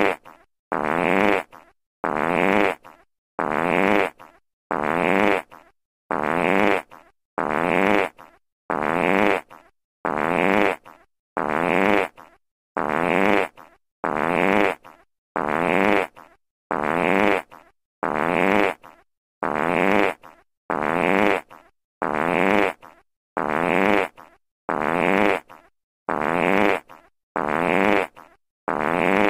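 A fart sound effect played on a loop: the same short, pitched fart repeats at an even pace about once a second, each one starting abruptly and tailing off, with a brief silent gap between them.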